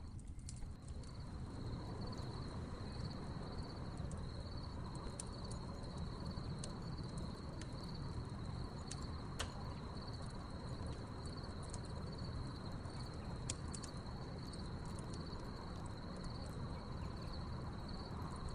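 Crickets chirping in a steady high trill over a crackling wood fire, which gives scattered sharp pops and a low steady rumble.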